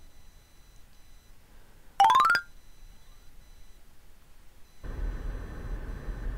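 A short, bright rising chime sound effect about two seconds in. Near the end the steady low rumble of a car driving on the road starts, heard from inside the car.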